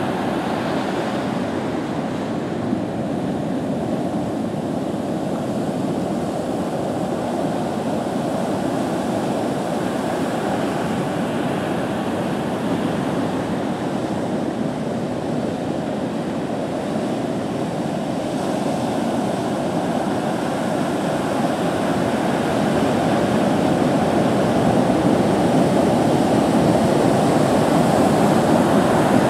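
Heavy storm surf breaking along the shore: a steady rush of waves that grows a little louder near the end.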